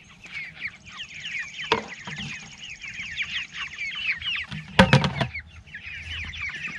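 A flock of 4-week-old meat chickens peeping and cheeping continuously in short falling calls, upset because their feed is late. About five seconds in there is a brief loud thump.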